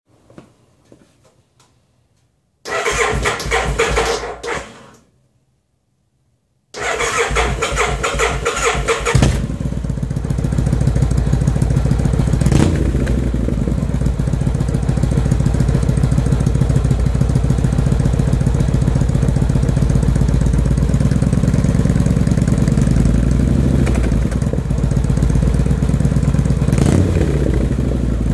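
1995 Kawasaki Vulcan 1500A V-twin cranked on its electric starter twice, catching on the second try and settling into a steady idle through a Vance & Hines Classic II exhaust with the baffles in. Engine speed briefly rises and falls twice while it idles. The owner says the engine still needs rejetting and a minor mixture adjustment.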